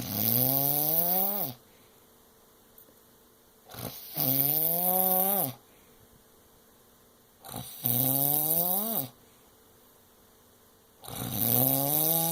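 Loud rhythmic snoring: four long, pitched, whining snores, one about every four seconds. Each rises slightly and drops off at its end.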